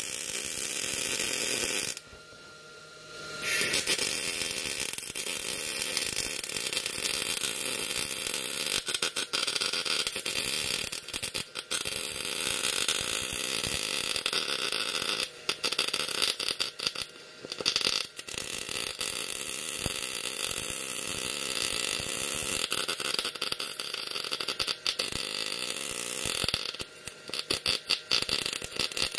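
MIG welding arc from a Miller 211 fed through a Harbor Freight Vulcan MIG torch, crackling steadily as the wire feeds. The arc breaks off briefly several times: for about a second and a half near two seconds in, twice in the middle and once near the end.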